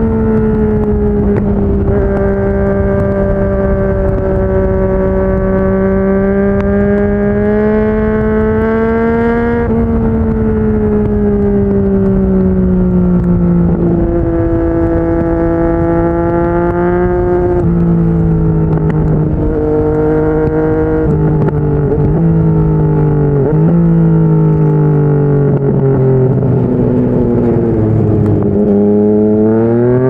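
Yamaha MT-09's inline three-cylinder engine, breathing through a Yoshimura R55 slip-on exhaust, running under way at steady cruising revs with gentle rises and falls in pitch. In the second half its note steps up and down several times, then climbs sharply near the end as the revs rise.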